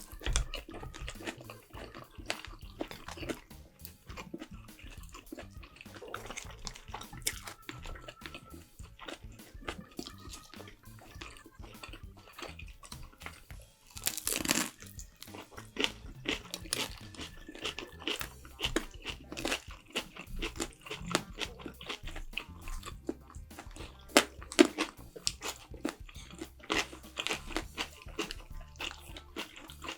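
A person eating close to the microphone: crunchy bites and chewing in quick, irregular strokes, with one louder crunch about halfway through.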